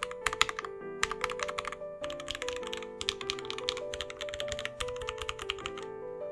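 Typing on a custom mechanical keyboard, the ION x Rama Works Zenith with lubed Gateron Black Ink v2 switches on a brass plate, in quick runs of keystrokes that stop near the end. Soft piano music plays underneath.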